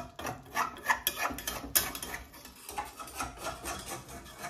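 Metal spatula scraping and stirring a thick tomato-masala paste around a metal kadai, a run of irregular rasping strokes a few times a second.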